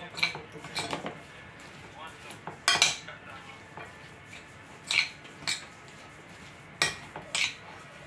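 Salad being tossed in a glass bowl, with a series of sharp, irregular clinks against the glass, about one every second.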